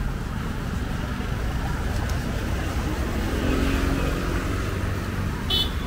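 Steady low rumble of street traffic noise, with faint voices around the middle and a brief high chirp near the end.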